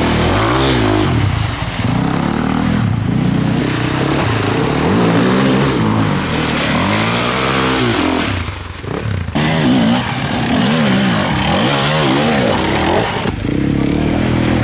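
Enduro motorcycle engines revving hard in repeated rising and falling surges as the bikes are forced through deep mud, with a brief drop in the engine noise about two-thirds of the way through.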